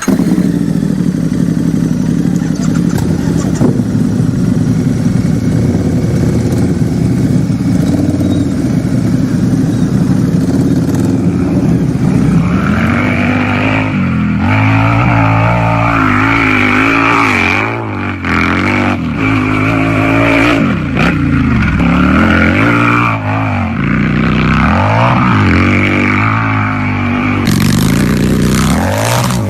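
Harley-Davidson V-twin motorcycle engine idling steadily with a low, loping rumble, then revved in a series of quick throttle blips from about halfway on, each rising in pitch and falling back to idle.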